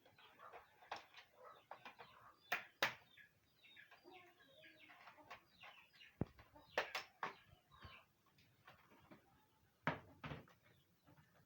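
Sharp clicks and knocks of a plastic laptop being handled and taken apart by hand, a few at a time, with chickens clucking faintly in the background.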